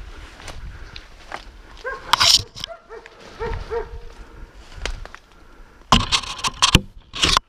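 Hunting dogs barking and yelping in short bursts, mixed with loud scraping and cracking of brush and twigs against the camera. The heaviest crashing comes near the end.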